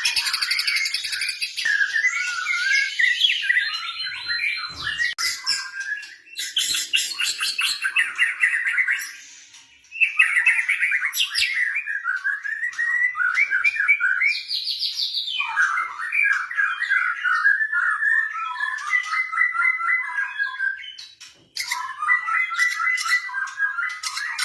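White-rumped shama (murai batu) singing a long, varied song of rapid trills, whistled glides and harsh chattering notes. It breaks off briefly about ten seconds in and again about twenty-one seconds in.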